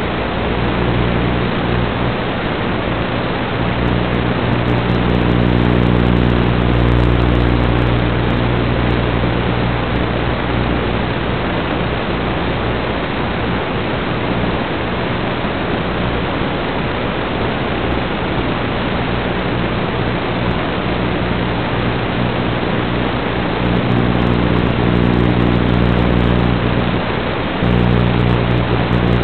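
Steady loud hiss of analog FPV video-receiver static. A low steady hum joins it from about a second in until about thirteen seconds, and again near the end.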